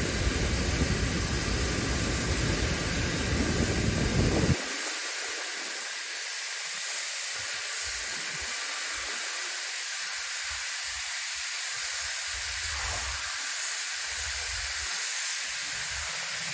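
Antonov An-124's Progress D-18T turbofan engines running at taxi power as a steady rushing hiss. A heavy low rumble, likely wind buffeting the microphone, cuts off abruptly about four and a half seconds in, after which low gusts come and go under the hiss.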